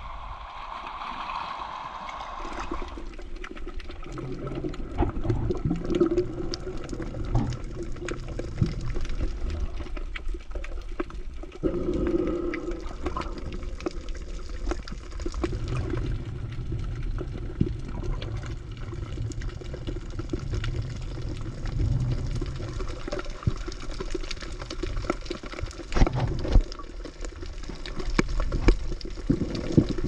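Sea water sloshing and gurgling, heard muffled through a camera submerged while swimming, with scattered small clicks.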